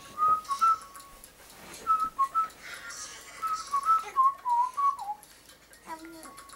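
A person whistling short, pure notes to a baby in three brief phrases, stepping up and down in pitch. Near the end the baby gives a short coo.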